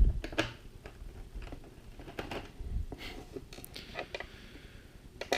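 Scattered light clicks, taps and scrapes of hands and a screwdriver working on a laptop's plastic case.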